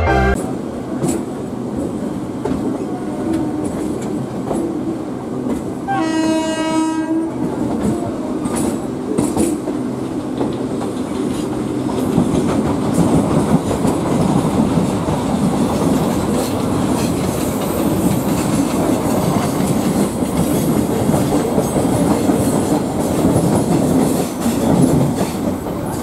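Onboard sound of an Indian Railways suburban EMU local train running along the track: steady rolling noise with wheels clattering over rail joints. A train horn sounds once for a little over a second, about six seconds in.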